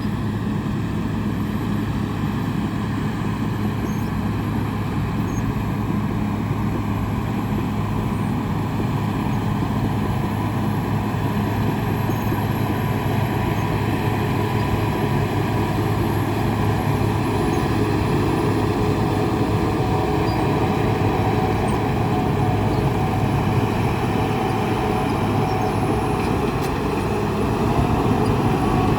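Engine running steadily with a constant hum, growing slightly louder near the end.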